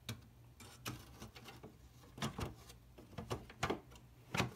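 Clicks and knocks of a NuBus video card being handled and fitted into its slot inside a Macintosh IIcx case: about eight short taps, the sharpest a little past two seconds in and near the end.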